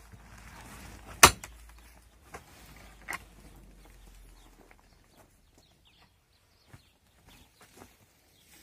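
A mattock striking and scraping the packed earth floor: one sharp strike about a second in, two lighter knocks a second or two later, then only faint scattered ticks.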